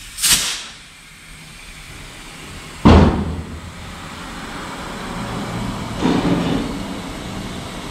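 A short rush of noise near the start, then a loud thump about three seconds in that tails off, over a low steady running noise.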